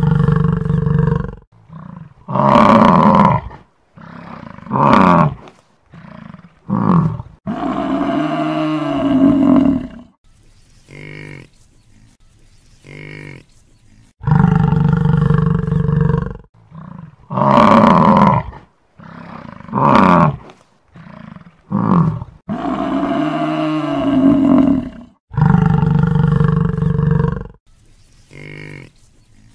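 Buffalo bellowing in a series of loud, low calls, some bending up and down in pitch, with short pauses between them; the same run of calls repeats about every 15 seconds.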